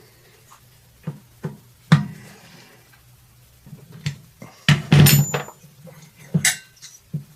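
Scattered clicks and metallic clinks of hand tools and small engine parts being handled, the loudest a short clatter with a brief metallic ring about five seconds in.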